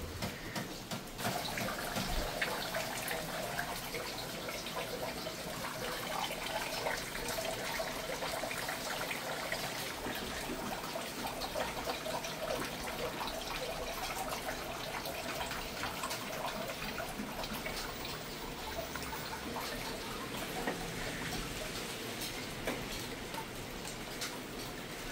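Water running and splashing inside an LG 15 kg direct-drive inverter washing machine, a steady watery sound with many small crackles and drips.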